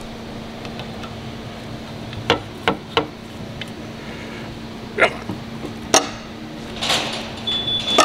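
Scattered sharp clicks and knocks of hand tools on a metal scooter wheel as a new rubber valve stem is levered through the wheel's valve hole, with a short scrape and a brief high squeak near the end. A steady low hum runs underneath.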